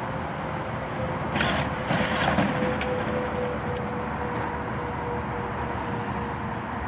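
A brief crackling rustle, like dry stems or twigs being crushed, about a second and a half in, over steady outdoor background noise with a faint steady tone.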